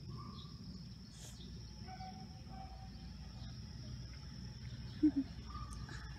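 Outdoor ambience: a steady high insect drone like crickets, with a few short bird-like calls over a low background rumble. About five seconds in, two brief low sounds in quick succession stand out as the loudest thing.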